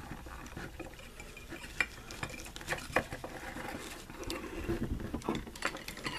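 Handling noise from dolls being picked up and set down on a tabletop: scattered light clicks and taps with soft rustling, and a sharper click about two seconds in and again at about three seconds.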